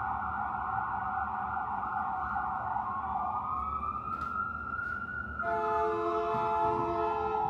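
An emergency vehicle's siren wailing, its pitch gliding up and then down, joined about five and a half seconds in by a blaring multi-note horn held for a couple of seconds.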